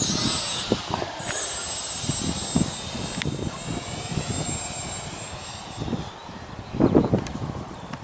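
Radio-controlled model airplane flying, its motor giving a thin, high, steady whine that stops about six seconds in as the plane comes down to land. Wind buffets the microphone in gusts, loudest about seven seconds in.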